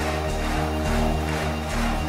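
Background music: sustained chords over a low bass line that shifts note about every half second.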